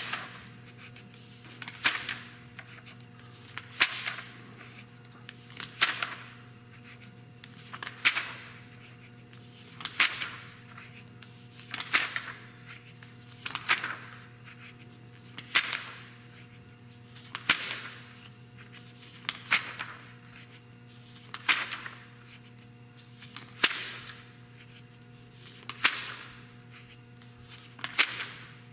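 Pages of a glossy art magazine turned by hand one after another, a crisp paper flip about every two seconds. A faint steady hum runs underneath.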